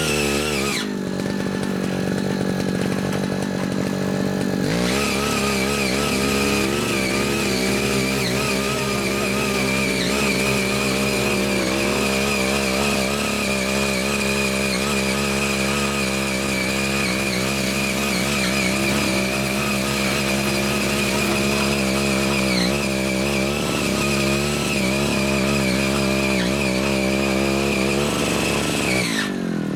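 Small 5 hp engine of a walk-behind rotary tiller running as its tines churn the soil, its pitch wavering under the load. The engine drops to a lower speed about a second in, picks back up around five seconds in, and slows again near the end.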